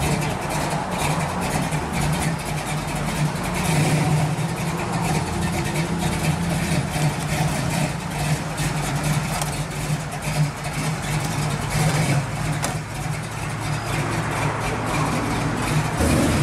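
Engine of a mid-1960s Chevy II Nova sedan running at low speed with a steady low note as the car rolls slowly by.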